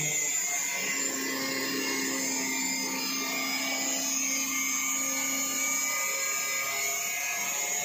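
A 4.5-inch, 1 mm super-thin abrasive cut-off wheel on an automatic cutting test machine grinding through a 16 mm stainless steel rod: a steady, high-pitched grinding hiss with a steady hum beneath.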